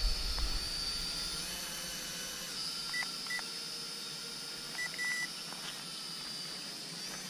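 Toy quadcopter's handheld remote control beeping: a pair of short high beeps about three seconds in and another pair about five seconds in, over the faint, steady high whine of the small drone's motors, which shifts slightly in pitch partway through.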